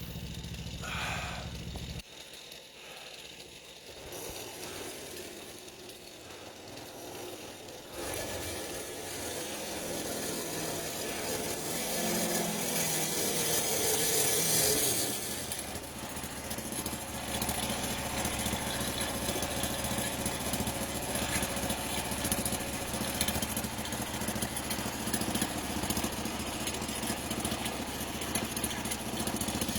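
An engine running, the sound breaking off and changing sharply a couple of times, with a louder hissing stretch partway through before it settles into a steady drone.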